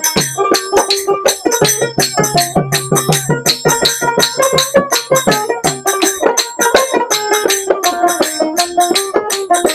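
Instrumental break of Bengali folk music: a dotara plucked in fast, even strokes over a steady low note, with a hand drum beating along.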